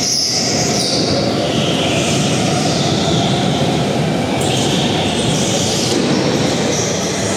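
Go-karts driving on the track: steady loud motor noise, its pitch sliding up and down as they speed up and slow down.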